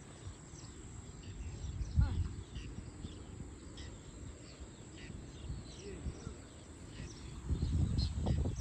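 Birds chirping: many short, high, falling chirps repeating over a low rumble. The rumble grows louder near the end.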